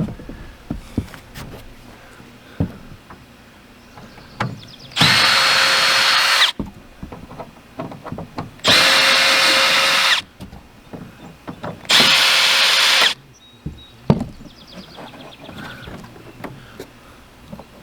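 Power drill whining in three bursts of about a second and a half each, backing screws out of an RV rooftop air conditioner's shroud. Scattered knocks and clicks between the bursts.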